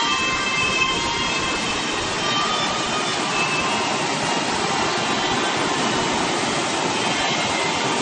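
Steady rushing of a rocky mountain stream.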